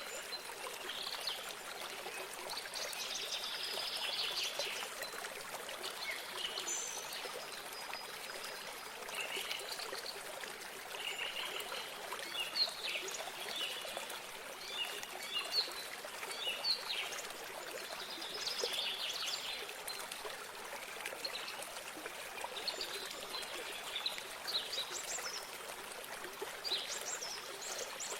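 Running water trickling steadily, with small birds chirping and giving short trills throughout.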